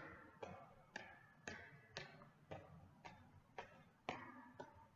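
Footfalls of a person hopping on one foot in sneakers on a hard floor: faint, evenly spaced landings about twice a second, each with a short echo.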